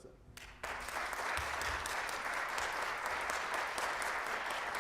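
Audience applauding, breaking out suddenly about half a second in and keeping up steadily.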